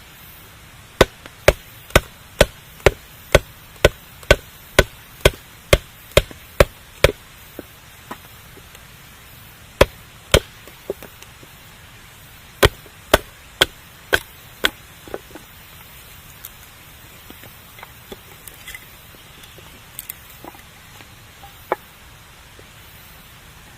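Wood being chopped with sharp, evenly spaced strikes about two a second: a long run of about fourteen, a pause, then two more short runs. After that, only scattered faint clicks remain.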